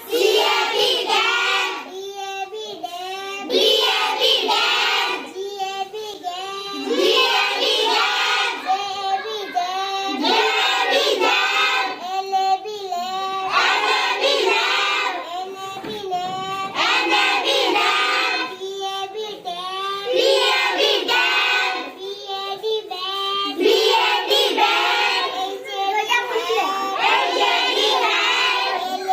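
Children chanting simple English words aloud in chorus, in a sing-song rhythm, in phrases a few seconds long with short breaks between them.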